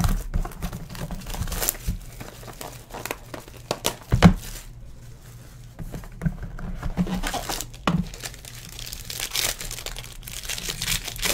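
Plastic wrap on a sealed Topps Tier One baseball card box being torn and crinkled off by hand, with a sharp knock of the box on the table about four seconds in.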